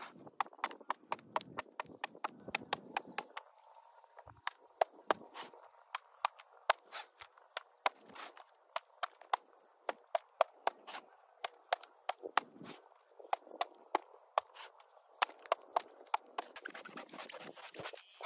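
Sharp wooden knocks in a quick, uneven series, roughly three a second with short pauses. A short high chirp repeats about once a second above them.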